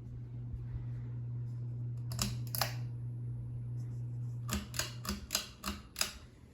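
Hampton Bay Edgemont ceiling fan's motor humming steadily, with two sharp clicks about two seconds in and a quick run of about six more clicks later. The hum stops about four and a half seconds in, as the clicks begin.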